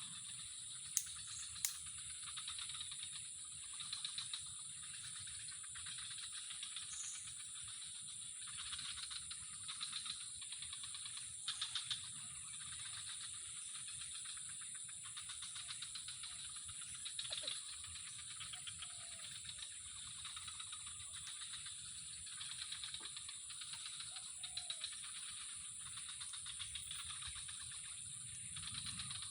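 Steady high-pitched trilling of insects, unbroken throughout, with a few sharp clicks about a second in.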